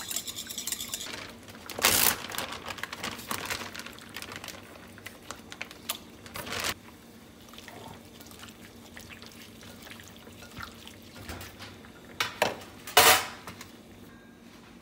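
Gloved hand mixing raw chicken thigh pieces in marinade in a glass bowl: wet squishing and pouring noises, with a few louder bursts of handling noise. It opens with the last quick clicks of chopsticks beating egg against the glass bowl, which stop about a second in.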